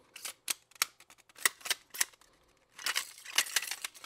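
Light clicks and knocks of plastic and metal lens parts being handled, then from about three seconds in a dense run of rapid rattling clicks as the inner barrel of a Canon EF 100-400mm L lens is shaken.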